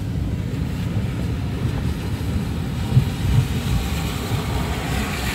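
Steady low rumble of a car driving on a wet road, heard from inside the cabin, with a hiss of tyres on the wet pavement growing louder near the end.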